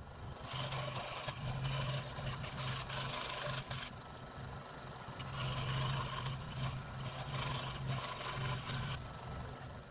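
A 16-inch variable-speed scroll saw running and cutting thin wood, with a steady motor hum and the rattle and scrape of the reciprocating blade. It starts about half a second in and stops near the end.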